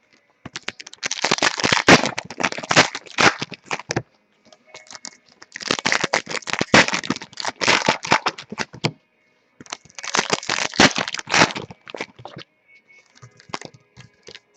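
Trading card packs being opened and handled: foil wrappers crinkling and crackling in three bursts of a few seconds each.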